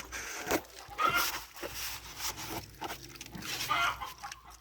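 Short farm-animal calls in a pig pen, among scattered knocks and rustling.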